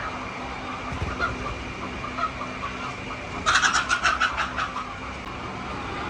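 Hens clucking, with a quick run of about eight loud clucks just past the middle, over a steady low hum.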